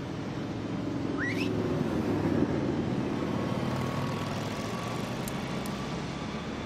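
City street traffic ambience, with a passing car swelling up about two seconds in and fading away. A short rising whistle-like chirp comes about a second in.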